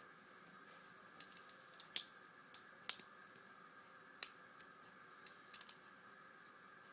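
Plastic Lego pieces clicking, in a dozen or so scattered sharp clicks as bricks are pressed onto the build to fill it up.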